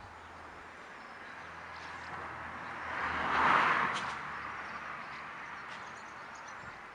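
A vehicle passing by: a rush of road noise that swells to a peak about halfway through, then fades away, with a single sharp tick near the peak.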